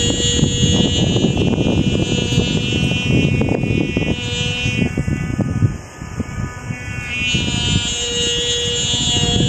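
A flying Vietnam-style kite's hummer sounding a steady, high-pitched, multi-toned drone, with wind noise rumbling underneath.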